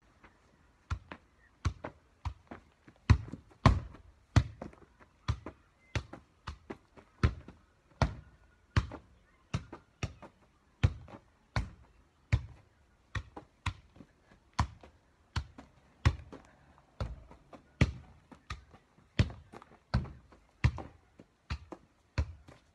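A ball being kicked repeatedly against a wooden weatherboard wall, a steady run of sharp thuds about two a second as it strikes the wall and the foot in turn.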